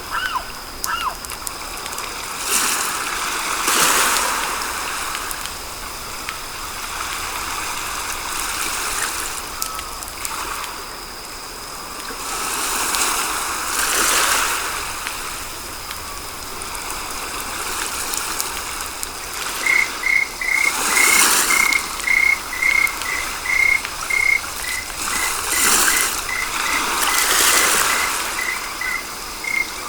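Frog calling in a steady series of short, even-pitched pulses, about two a second, starting about two-thirds of the way in, over a nature ambience with slow swells of rushing, water-like noise.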